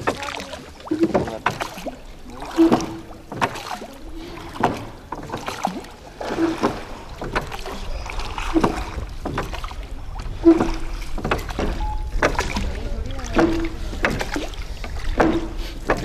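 Hand-rowed wooden boat being rowed: a short knock and creak from the oars working in their locks about every two seconds, with the splash of the blades in the water.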